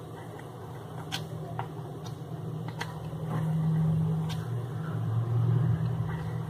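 Light clicks and taps of a small knife against the rim of a plastic lid as it is run round the edge of a steamed rice papad. A low hum underneath swells twice.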